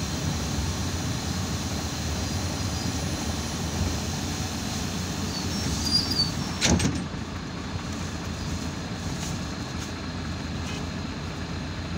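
Irisbus Citelis 12 m city bus heard from inside the cabin, its engine and cabin rumbling steadily while it stands at a stop. About seven seconds in there is a short high squeak and then a sharp thump as the passenger doors close.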